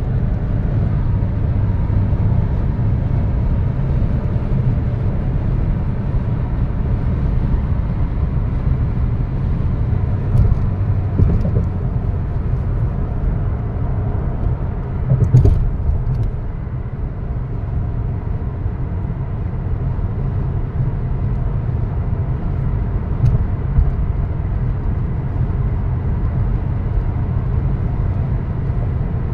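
Car cruising at highway speed, heard from inside the cabin: a steady low rumble of tyres and engine. A few brief knocks cut through it, the loudest about halfway through.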